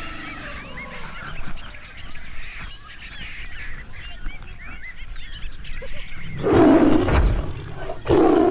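Outdoor background with many short high chirps, broken by two loud rough rushing bursts, the first about six and a half seconds in and the second near the end.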